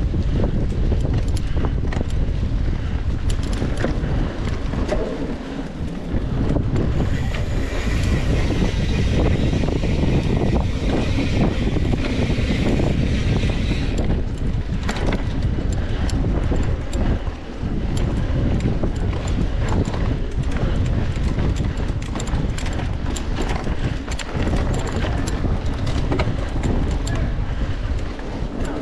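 Wind buffeting the microphone of a camera riding on a mountain bike moving along a trail, with frequent clicks and rattles from the bike jolting over bumps. A higher hiss joins for several seconds from about seven seconds in.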